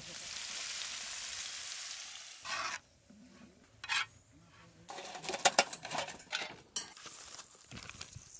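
Bacon fat and onion sizzling steadily on a hot flat griddle for about two and a half seconds. Then comes a quieter stretch of a metal spoon stirring farofa in the pan, with a cluster of sharp scrapes and knocks of the spoon against the griddle about five to seven seconds in.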